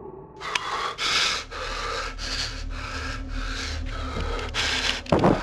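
A man panting heavily through an open mouth, rapid noisy breaths in and out at about two a second. A short, louder, deeper breath comes near the end.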